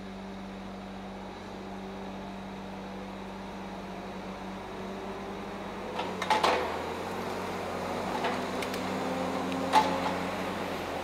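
Tigercat 870C feller buncher running steadily at a distance, its pitch rising a little in the second half, with a cluster of sharp cracks about six seconds in and one more near the end.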